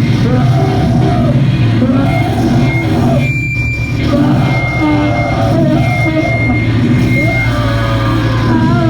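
Live hardcore punk band playing loud, distorted music with shouted vocals, the bass heavy and steady underneath.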